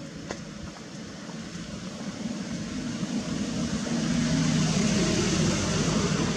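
A motor engine running steadily, growing louder about halfway through and then holding.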